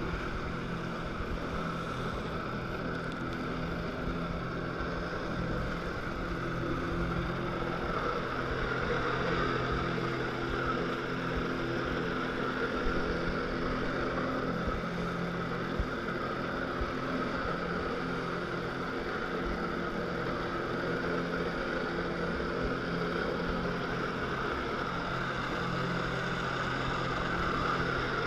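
Personal watercraft engine running steadily at high power close by, driving its jet pump to feed water up the hose to a flyboard.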